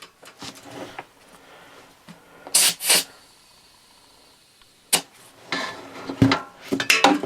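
Work on a lawn tractor tire fitted with an inner tube: two short hissing bursts of air about two and a half seconds in, as air goes into the tire to seat the bead, then a sharp knock just before five seconds and a run of knocks and clanks near the end.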